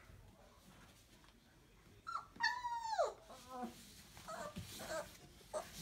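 27-day-old Entlebucher puppies whimpering. About two seconds in comes a short yip, then one long whine that falls in pitch, followed by several shorter, squeaky whimpers.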